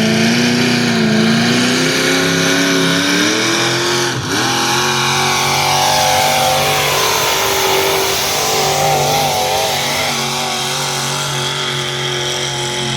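Small-block Chevrolet V8 in a farm tractor running at full throttle under a pull load. Its pitch climbs over the first four seconds, dips briefly, then holds high with some wavering, and the engine note drops away near the end as the throttle is let off.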